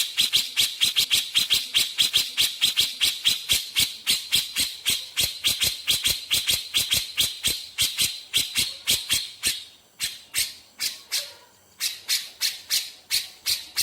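Cucak jenggot (grey-cheeked bulbul) calling in a fast, even series of sharp, bright notes at about five a second, the rapid 'nembak' burst style, with a brief lull about ten seconds in before it resumes.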